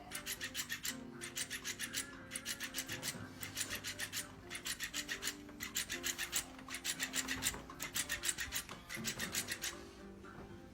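Rapid rasping or scratching strokes, several a second, in runs of about a second with short pauses between, over faint background music.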